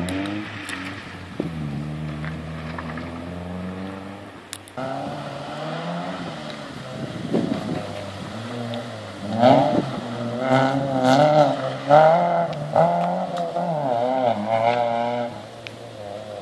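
Rally car engines revving hard through the gears, the engine note climbing and dropping repeatedly. In the second half the engine is louder, with the revs rising and falling quickly over and over.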